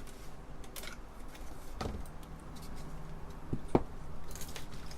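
Hands handling the Apple II Plus keyboard and its brass shield sheet: a few light clicks and scrapes of metal and plastic, the sharpest click about three-quarters of the way through, over a steady low hum.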